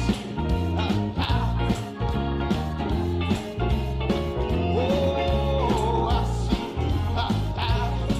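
Instrumental gospel music with a steady beat: bass, drums and held melody lines from a band playing on after the last sung line.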